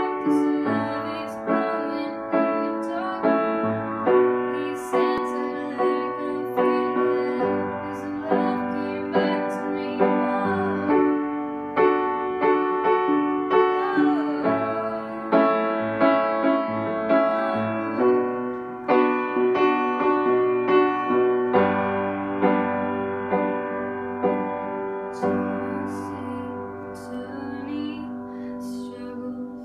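Upright piano played solo as a slow ballad, chords and melody notes struck every half second to a second and left ringing. It grows softer near the end.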